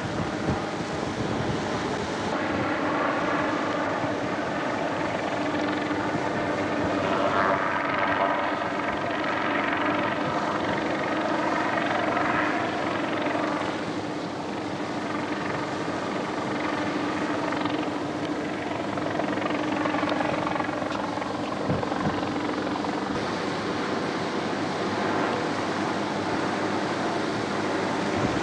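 Helicopter flying overhead: a steady engine and rotor drone that grows louder for a few seconds in the middle, then eases off again.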